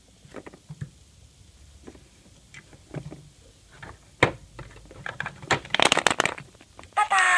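Small plastic toy figures and a hollow plastic surprise egg clicking and tapping as they are handled and set down on a plastic playset, with a denser run of clicks about six seconds in. A steady pitched sound starts just before the end.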